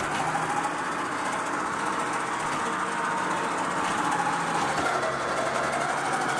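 Tow truck's winch running steadily under load, dragging a car toward the truck's loading ramps, with a constant mechanical hum.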